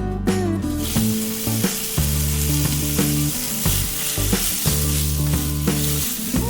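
Marinated pork slices sizzling as they fry in a pan, the hiss starting about a second in, with background music playing throughout.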